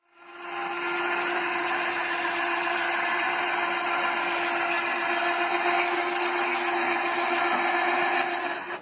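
Electric tilt drive of a trailer-mounted solar panel array running steadily with a constant hum as it lowers the panels from a steep tilt to flat.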